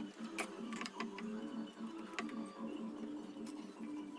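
Scattered light metal clicks and taps from a sewing machine's needle plate being unscrewed and lifted off, over a faint low steady hum.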